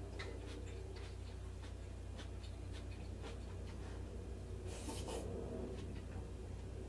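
Quiet eating sounds: chopsticks clicking against a soup bowl and soft chewing, with a short slurp of soup from the bowl about five seconds in. A low steady hum runs underneath.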